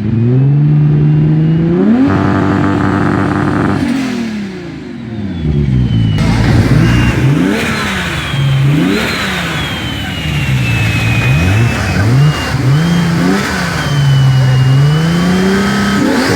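Toyota Supra engine revving hard: the pitch climbs and holds high for about two seconds, drops, then rises and falls again and again in quick rev blips. A thin high whistle glides up and down over the engine in the second half.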